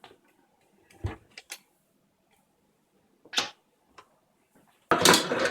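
A few scattered light knocks and clicks, then a louder brief clatter about five seconds in.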